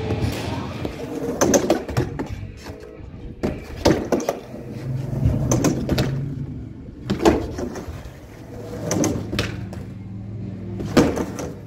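Skateboard being ridden: wheels rolling and the board clacking sharply as tricks are popped and landed, about eight times, with background music underneath.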